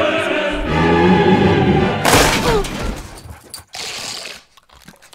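Music swelling, with a deep bass hit about half a second in, cut by one loud crash with a breaking, shattering edge about two seconds in. After the crash only faint scattered knocks remain.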